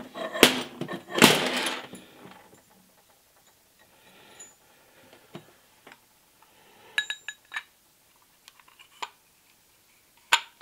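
Steel parts of a Hardinge lathe collet closer knocking and clinking as they are handled and slid together by hand. Two loud clattering knocks come in the first two seconds, then a cluster of small ringing clinks around the middle and a sharp click near the end.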